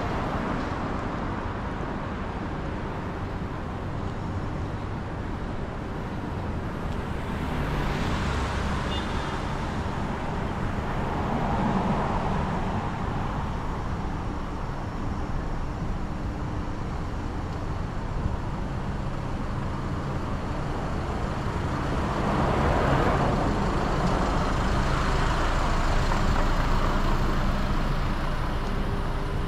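Road traffic on a multi-lane city street: a steady wash of car and engine noise, with vehicles passing close by and swelling louder a third of the way in and again for several seconds near the end.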